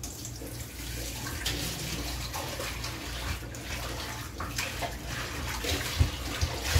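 Salt shaken from a plastic shaker onto raw chicken pieces in a plastic bowl: a steady granular hiss with repeated shakes, and a couple of low knocks near the end.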